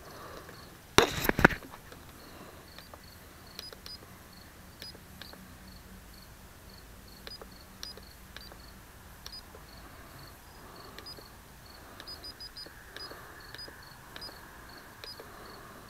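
Handling noise on a camera mounted on a foam RC model plane: a loud clatter about a second in, then scattered small clicks and knocks, with faint short high-pitched blips recurring throughout.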